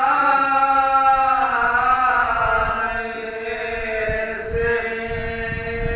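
Unaccompanied man chanting a Muharram mourning recitation (soz or noha) into a microphone, holding long notes that bend slowly in pitch.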